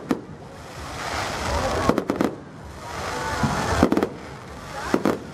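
Aerial fireworks bursting: a series of sharp bangs every one to two seconds, with crackling that swells between them.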